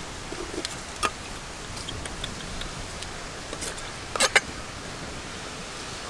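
Cooking at a wok over a wood fire: a few sharp clicks and knocks over a steady hiss, the loudest a quick cluster about four seconds in, as a water snake is scalded in the hot water.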